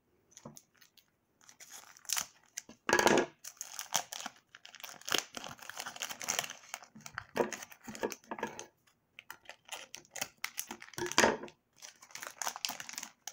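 Clear plastic wrapping being torn and peeled off a small cube, crinkling and crackling in irregular bits. There is a louder rip about three seconds in and another near the end.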